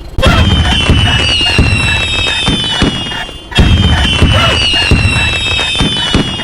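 Fireworks sound effect played twice, each about three seconds long: several high whistles gliding slowly downward over crackles and low booms.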